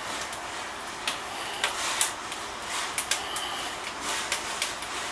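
Wood fire crackling in a brick fireplace's firebox, with irregular sharp pops a few times a second over a steady hiss.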